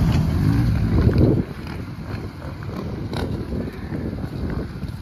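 Ram heavy-duty pickup's Cummins diesel engine pulling through mud, loud for the first second and a half, then easing to a lower, quieter run. Wind on the microphone.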